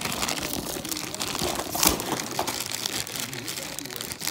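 Plastic packaging crinkling and crackling as it is handled, with one louder crackle about two seconds in.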